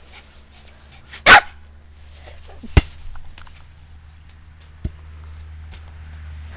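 A puppy gives one short, loud bark about a second in, followed by a couple of sharp knocks, over a steady low rumble.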